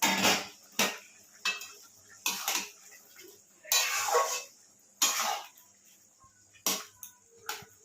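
A metal spoon scraping and knocking against a kadai in about eight short, irregular strokes, as chicken pieces are added to the sauce and stirred in.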